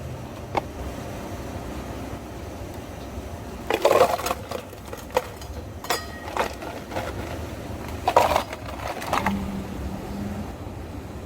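Clatter of drink-making at a cafe counter: two short bursts of knocking and rattling about four and eight seconds in, with scattered single clicks, over a steady low hum of cafe equipment.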